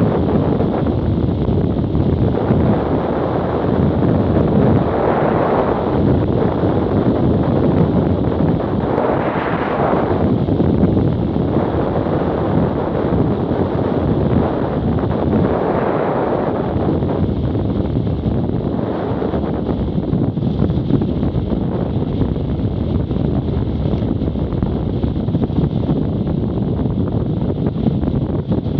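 Wind buffeting the microphone of a camera on a BMW F800GS motorcycle at road speed, a steady roar that swells a few times, covering the bike's own engine and tyre noise.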